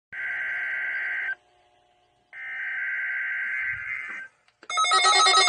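Two bursts of the screechy, buzzing SAME digital header tones of a NOAA Weather Radio Required Weekly Test, the first about a second long and the second about two, with a short silence between. Near the end a louder, steady multi-pitched alarm tone with a pulsing pattern starts.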